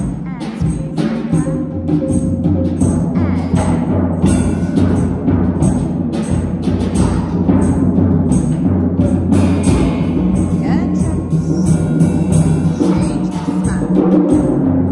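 Live piano and drum music with a steady beat of drum strokes over sustained low notes.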